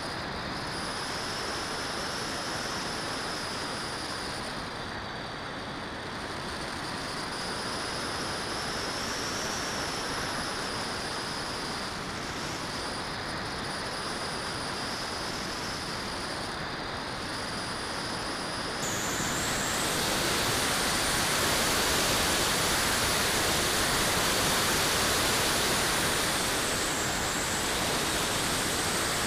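Airflow rushing over a camera mounted on a 3.2-metre radio-controlled glider in flight, with a faint high whistle that wavers in pitch. About two-thirds of the way through, the rush abruptly gets louder and brighter and the whistle jumps higher.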